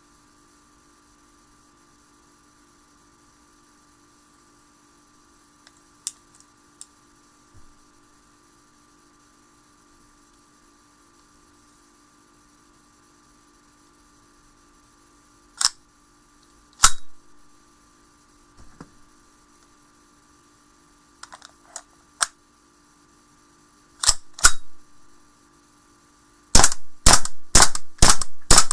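Gas blowback airsoft OA-93 pistol, a custom build on a WE M4, being test-fired with sharp cracking shots and the bolt cycling. Two single shots a second apart come first, then a quick pair, then a rapid string of about three shots a second near the end, with a few light clicks in between. A faint steady hum sits underneath.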